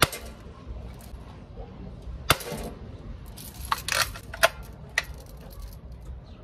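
Mendoza Vaquero lever-action BB rifle fired with a sharp snap right at the start, followed by a metallic clink about two seconds in. The lever is then worked with a quick run of clicks and clatter around four seconds in to re-cock the spring, with one more click about a second later.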